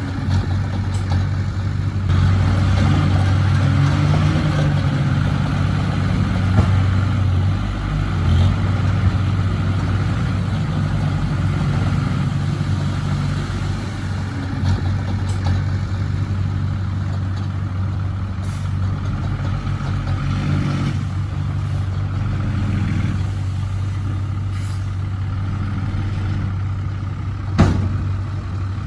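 A heavy-equipment diesel engine runs steadily under varying load, with scattered light ticks and one sharp clank near the end.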